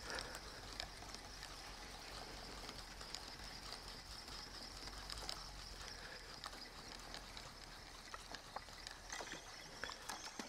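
Faint outdoor ambience: a steady high-pitched hiss over a low hum, with a few light ticks.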